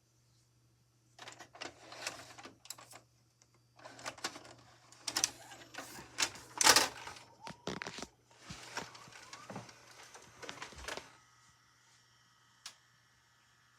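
VHS cassette being handled and loaded into a VCR: a run of plastic clicks, clatter and mechanical whirring for about ten seconds. It then settles into a faint steady whine, with one more sharp click near the end.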